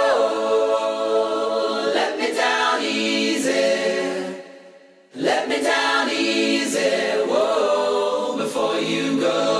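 Music of layered sung vocal harmonies holding long chords, with no clear words. It dies away about four seconds in and comes back about a second later.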